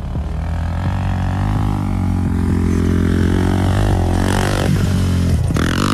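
Four-wheeler (ATV) engine running under throttle, revving up with a rising pitch past the middle, and a louder burst of throttle near the end.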